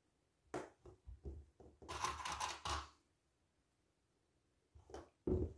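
Small plastic sewing clips clicking shut on layered fabric, with light rustling as the fabric is handled. There are a few sharp clicks about half a second in, a denser run of clicks and rustling from about two to three seconds, and two more clicks near the end.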